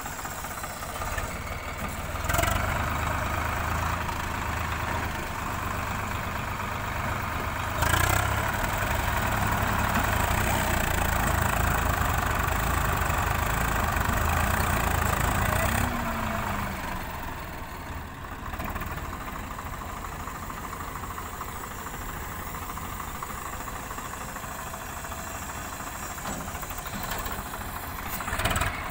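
Diesel tractor engines working under load as the mud-stuck Swaraj 744 FE is pulled free on a tow rope by a second tractor. The engine note rises about two seconds in and stays high, with a sharp knock near eight seconds, then drops to a lower, steadier run after about sixteen seconds.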